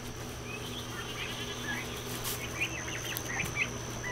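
Young turkeys peeping in the brooder barn, a scatter of short high chirps that grows thicker toward the end, over a steady high insect drone and a low hum.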